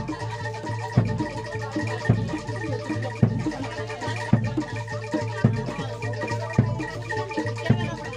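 Javanese kuda lumping music: a gamelan-style ensemble of drums and ringing percussion with a heavy beat about once a second under sustained tones.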